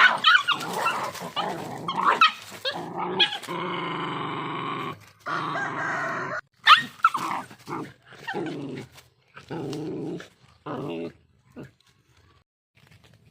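Two dogs growling at each other in a fight over food: a quick run of short, sharp barks and snaps in the first three seconds, then long drawn-out growls broken by brief pauses, dying away near the end.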